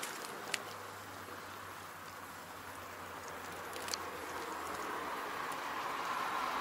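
Faint outdoor background with a low steady hum and two small clicks, then a vehicle's noise growing steadily louder toward the end.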